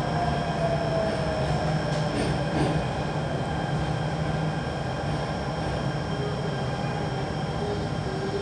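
Interior running noise of a Jakarta MRT train car pulling into a station: a steady rumble with a motor whine that falls in pitch over the first two seconds.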